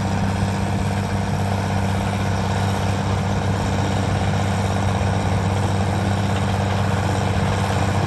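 Tractor engine running steadily with a low, even hum.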